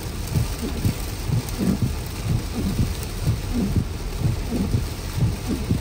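Heavy rain heard from inside a moving car: a steady hiss of rain, with irregular low thuds several times a second.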